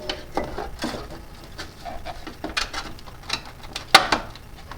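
Hand tools clinking and knocking as someone rummages for a long extension, a string of irregular small clicks with one sharper knock about four seconds in.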